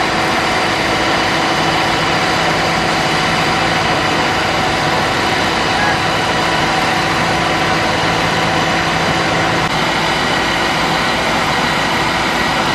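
A heavy engine running steadily at idle: a constant hum with several steady tones over it.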